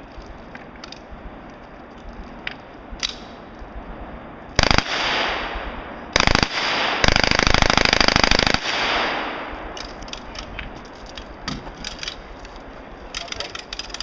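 Full-auto bursts from a Lage Max-31 open-bolt submachine gun: a short burst about four and a half seconds in, another about six seconds in, then a longer burst of about a second and a half, each echoing after it stops.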